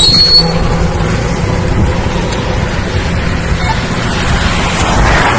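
Steady road and wind noise from a vehicle driving along a highway, with a low rumble. A high whine cuts off just after the start.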